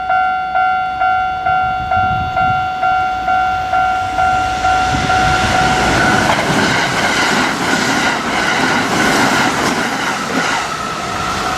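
Japanese level-crossing warning bell ringing, a pitched ding struck about twice a second. About six seconds in a Kintetsu train passes over the crossing, its wheels clacking over the rail joints and all but drowning out the bell.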